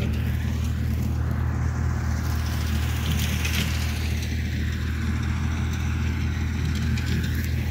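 Steady low engine drone of a BCS reaper binder running in the wheat field, with a shifting hiss over it.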